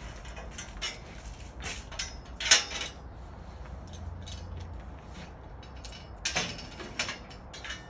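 Metal scaffold tubes clinking and knocking as one is raised on an installation pole and hooked onto a scaffold standard: a few sharp clanks, the loudest about a third of the way in, and another cluster of knocks near the end.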